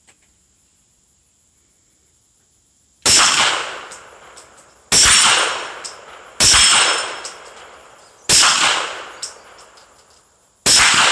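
Five suppressed 9mm pistol shots from a Poly 80 build fitted with a Griffin Resistance 9 suppressor. The shots come at an uneven pace, one every one and a half to two and a half seconds, after about three seconds of quiet. Each is a sharp crack that dies away over about a second, and a few faint ticks fall between shots.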